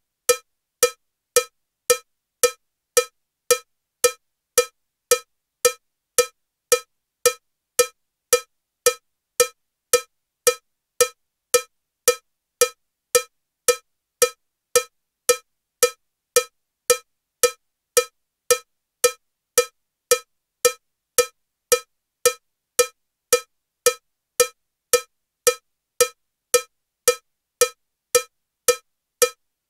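Metronome with a cowbell sound ticking steadily at 112 beats per minute: short, even cowbell strikes just under two a second, every beat the same.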